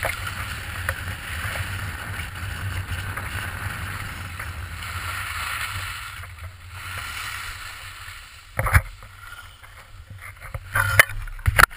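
Skis carving down a groomed piste: a steady scraping hiss of edges on snow, with low wind rumble on the action camera's microphone. Sharp knocks about nine seconds in and several more near the end.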